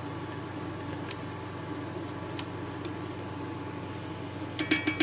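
Steady low kitchen hum, with a quick run of sharp clicks and knocks near the end as a spatula scrapes and taps chili paste out of a plastic blender jar into the pot.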